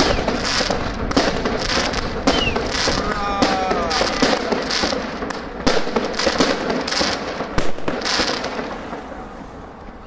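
Fireworks firing in rapid succession: a string of launch shots and bursts with crackling stars. The firing tails off near the end.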